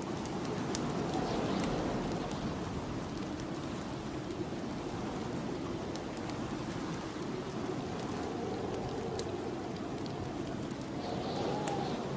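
Snowstorm wind blowing steadily, with slow gusts that rise and fall. A fireplace crackles now and then with sharp little ticks.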